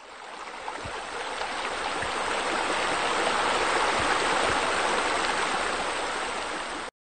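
Running, splashing water: a steady rush that swells over the first few seconds and cuts off abruptly near the end.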